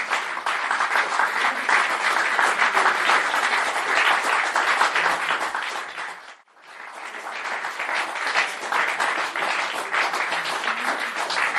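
Theatre audience applauding. The clapping breaks off briefly about six and a half seconds in, then builds back up.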